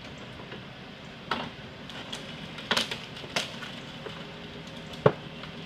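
Sharp cracks and knocks from an overturned car being winched across the roadside by a tow truck, four of them, the loudest about five seconds in, over the steady hum of the truck's engine.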